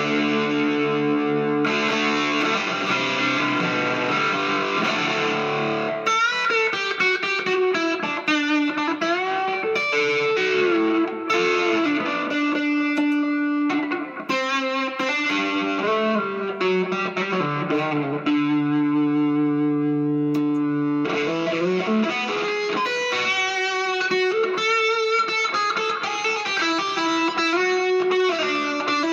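Gibson Les Paul Studio electric guitar through a Vox tube amp and effects pedals, played with a distorted tone. It opens with held chords for about six seconds, then moves to single-note lead lines with string bends, another long held chord about two-thirds of the way in, and more lead playing near the end.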